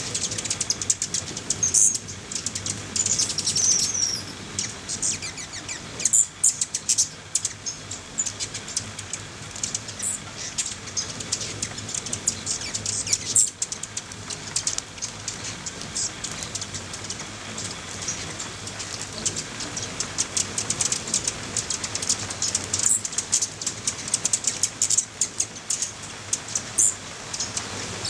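Many hummingbirds squeaking and chittering in short high bursts while whirring around a nectar feeder, fighting over the feeding ports. A steady hiss of monsoon rain runs behind them.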